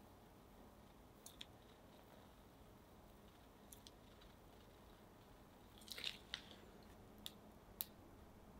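Piping bag squeezed hard to press stiff butter cookie dough through a metal star tip: a few faint, brief squishes and crinkles, the busiest cluster about six seconds in, over near silence.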